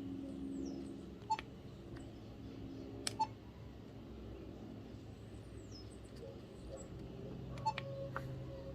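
BlackBerry Curve 8900 keys or trackball clicking, each press with a short beep, about a second in, three seconds in and near the end, over a faint steady hum.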